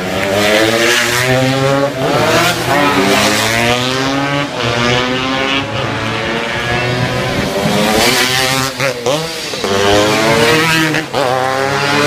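Classic racing motorcycles accelerating hard past on the circuit, their engines revving up in pitch over and over as they run through the gears, with brief drops between the rises.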